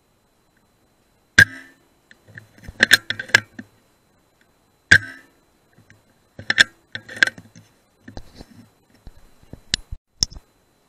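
Two sharp shots from a BSA R10 .177 pre-charged pneumatic air rifle, about three and a half seconds apart, each followed by a quick run of metallic clicks as the bolt is cycled to load the next pellet. A few lighter clicks near the end.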